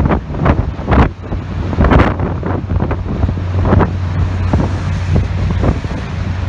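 Wind buffeting the microphone in uneven gusts, over a steady low hum from the cruise boat's engine.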